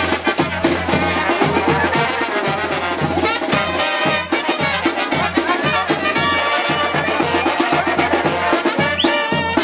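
Brass band music with a steady beat, playing for dancing.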